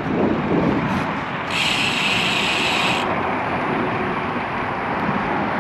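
Steady wind and road noise on a bicycle-mounted camera while riding, with a motor vehicle passing in the first second. A brighter hiss rises for about a second and a half, a couple of seconds in.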